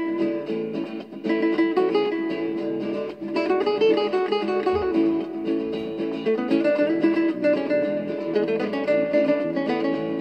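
Spanish-style acoustic guitar music in a nuevo flamenco style: a quick plucked melody over held accompanying tones.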